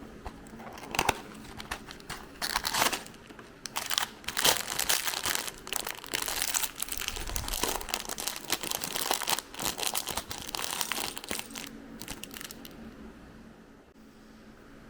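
Toy packaging being opened by hand: irregular crinkling and tearing in quick bursts for most of the stretch, then it stops.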